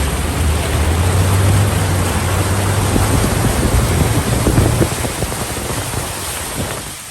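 Car driving through deep floodwater on the road, its tyres throwing up a steady rush of spray over the low hum of the engine; the rush fades away near the end.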